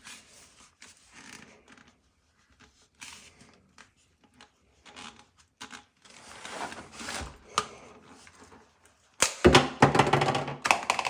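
A P-trap extension tube being handled and cut to length: scattered small knocks and rustles, then near the end a burst of loud, rapid clicking and crunching as the cut goes through the tube.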